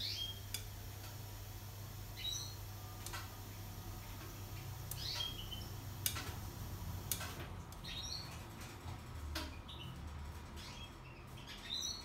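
Hotpoint Ariston Aqualtis washer-dryer running with a low steady hum, as its test programme moves from spin to drying. Over it, a bird gives short high chirps about every two seconds, with a few light clicks in between.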